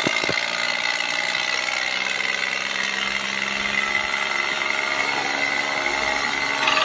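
Miniature toy tractor's small motor and gears running with a steady whir and a high, constant whine.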